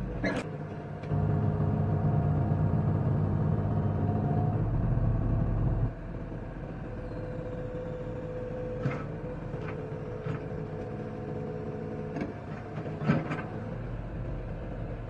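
Hitachi ZX120 crawler excavator's diesel engine running as the boom and arm are worked. It runs louder at first, then drops to a lower, steadier level about six seconds in. A few short clicks or knocks come from the machine.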